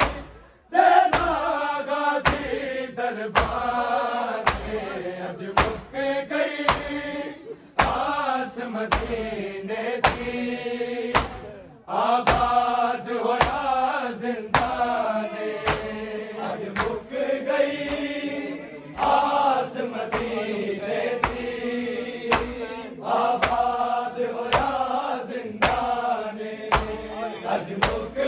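Men's voices chanting a noha, a sung lament, kept in time by sharp rhythmic strikes a little more than once a second, typical of matam, hands beating on chests. The singing pauses briefly a few times between lines while the strikes continue.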